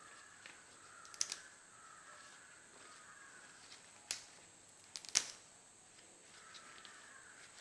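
Betel leaves being pinched and torn by hand, with a few small sharp snaps of the stalks breaking: one about a second in, one around four seconds and a quick cluster around five seconds.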